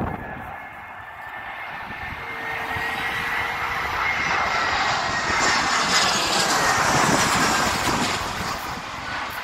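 Twin-engine jet airliner on final approach passing low overhead. The engine noise builds to a peak about six to seven seconds in, with a high whine that slides slowly down in pitch, then starts to fade near the end.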